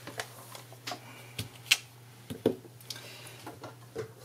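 A clear acrylic stamp block and craft supplies are handled on a tabletop, giving about half a dozen light, irregular clicks and taps, the sharpest about a second and a half in.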